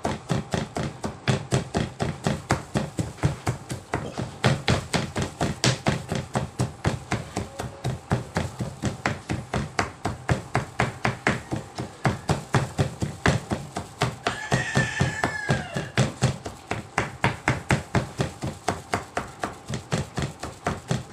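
Kitchen knife chopping banana heart on a plastic cutting board: a quick, steady run of blade strikes at about four a second as the blossom is minced fine.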